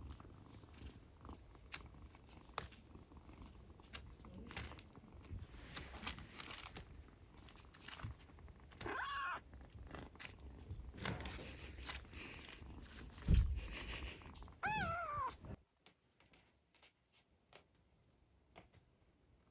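Kitten purring with a low steady rumble, meowing twice, briefly about halfway through and again with a falling call near three-quarters in, after which the sound cuts off.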